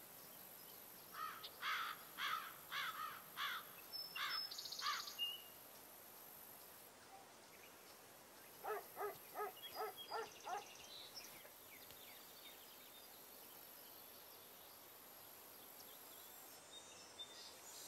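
A songbird singing two runs of quick, repeated clear notes over faint steady outdoor background. The first run starts about a second in and lasts about four seconds; the second, lower-pitched and faster, comes near the middle.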